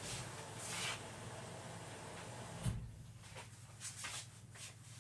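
A washing machine hums low and steady. About two and a half seconds in there is one knock, like a kitchen cupboard door shutting, followed by a few faint clicks.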